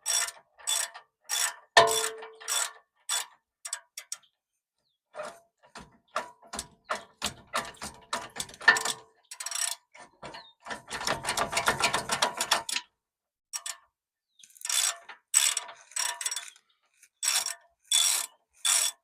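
Hand ratchet wrench clicking in repeated back-and-forth strokes, with a long fast run of clicks just past the middle. A metallic clink with a short ring about two seconds in.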